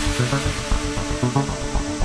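Background music: electronic dance track with a steady beat.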